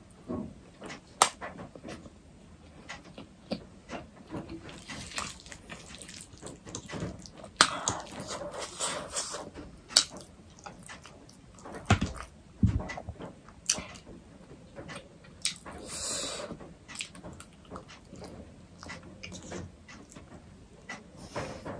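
Close-miked mukbang eating sounds: chewing and slurping of steamed beef momos and black bean noodles, with sharp clicks of a metal fork against the plate scattered throughout.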